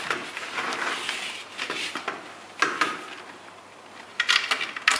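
Schwalbe Ultremo road bike slick tyre being worked over the rim by hand without tyre levers: rubber rubbing and scraping against the rim in several strokes, with a quick run of sharp clicks near the end.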